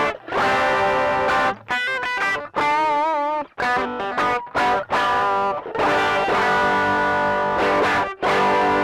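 Electric guitar played through a pedalboard: chords struck and left to ring, a few brief gaps between them, and a short phrase with wavering vibrato about three seconds in.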